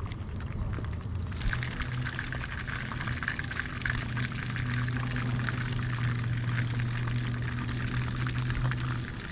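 Whole white perch frying in hot oil in a pan on a portable gas stove: the oil starts sizzling and crackling about a second and a half in, a sign it has come up to frying heat, over a steady low hum.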